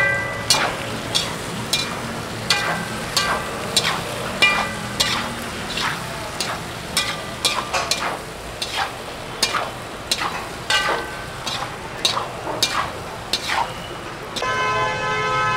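Steel spatula clinking and scraping against a large metal kadai as diced vegetables are tossed with green masala: irregular metallic clinks, one or two a second, over a steady hiss. A steady ringing tone with several pitches comes in near the end.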